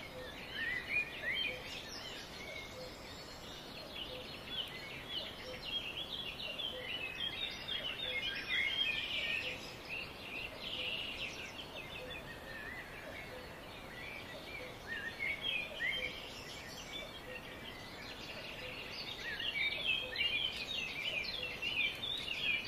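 Small birds chirping, many short calls overlapping, busiest about a third of the way in and again near the end.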